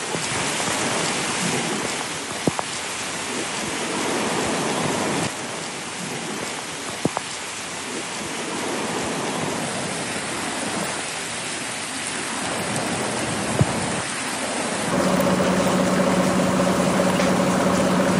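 Torrential rain pouring down steadily, with a few sharp clicks. From about 15 seconds in, the rain gets louder and a steady low droning hum joins it.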